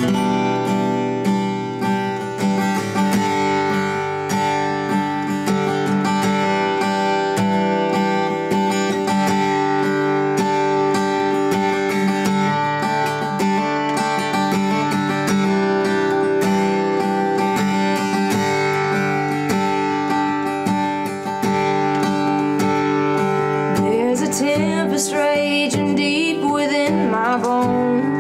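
Steel-string acoustic guitar playing a song's instrumental introduction. A woman's singing voice comes in over the guitar near the end.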